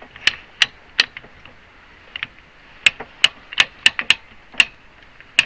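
Ratchet of a homemade bee hive lifter clicking as its hand crank is turned to raise a load: sharp single clicks about three a second, with a short pause after the first three.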